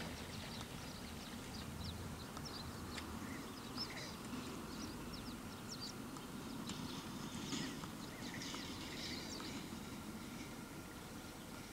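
Red-breasted mergansers calling during courtship display on the water: many short, high-pitched chirps and calls, some clustered more thickly in the second half, over a low steady rumble.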